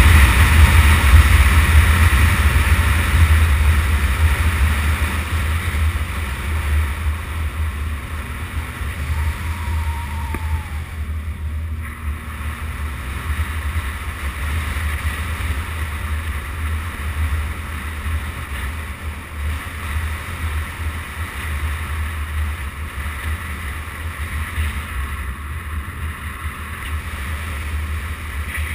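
Wind rumbling on the microphone of a motorcycle riding on a gravel road, with the bike's engine and tyres under it; it eases off over the first several seconds, then holds steady.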